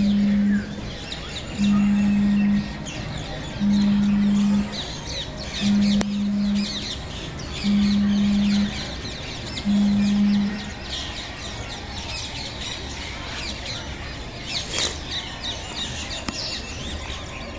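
Many small birds chirping and twittering together in an aviary. A loud, low, steady tone sounds for about a second at a time, six times about two seconds apart, and stops about eleven seconds in.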